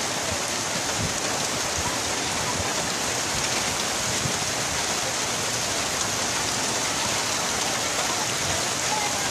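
Heavy rain falling steadily, a dense, even hiss of drops at constant strength.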